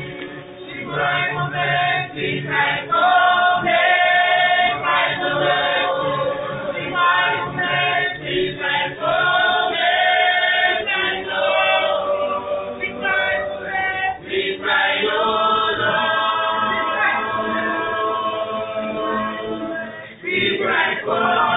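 Small mixed group of male and female voices singing a cappella in harmony, holding long chords with short breaks between phrases.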